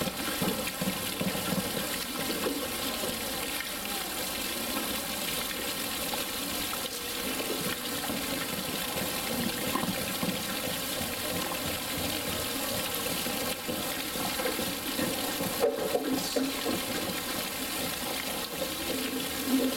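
Continuous splashing and running water in a polar bear's pool, steady throughout with a few slightly louder splashes near the end.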